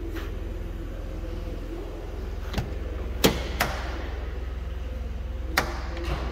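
Four sharp, short knocks spread over a few seconds, the loudest near the middle, over a steady low hum.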